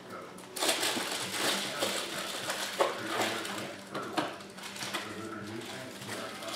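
Football trading cards being handled: a stack lifted off a pile and thumbed through card by card, a run of crisp flicks and slides of card stock with a few sharper ticks.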